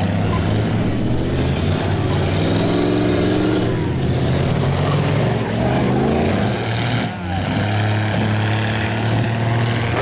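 Engines of demolition-derby minivans and SUVs running together, several of them revving up and down in pitch as the vehicles manoeuvre.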